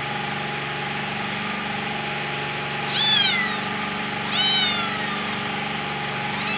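A kitten meowing twice, about a second and a half apart, each meow short and falling in pitch, with a third meow starting at the very end. A steady mechanical hum runs underneath.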